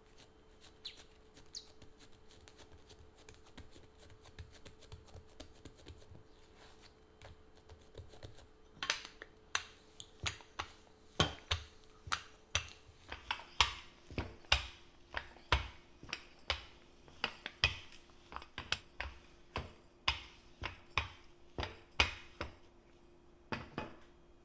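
Bread dough being rolled out with a rolling pin on a silicone baking mat: after soft patting by hand, the pin knocks against the mat with each back-and-forth stroke, roughly one to two knocks a second from about nine seconds in. A faint steady hum runs underneath.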